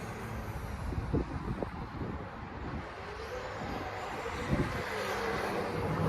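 Traxxas Slash 2WD RC truck being driven, its On-Board Audio speaker playing a simulated engine sound whose pitch rises and falls with the throttle. A few short knocks sound about a second in, again half a second later, and near 4.5 seconds.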